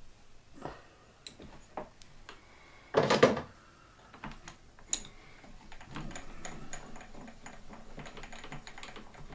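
Metal tools and lathe parts being handled at the bench: scattered sharp clicks and clinks, a short loud clatter about three seconds in, then a run of quick light rattling clicks from about six seconds on.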